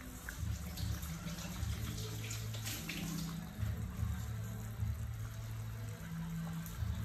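A pot of soup with cabbage, carrots and meatballs bubbling as it simmers, a steady watery bubbling.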